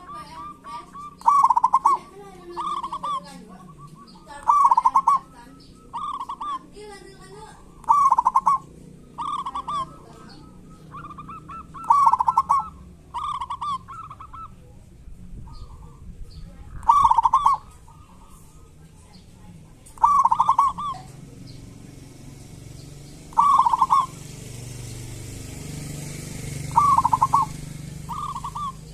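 Zebra dove (local perkutut) calling, a run of about sixteen short calls spaced one to three seconds apart, with the gaps growing longer in the second half.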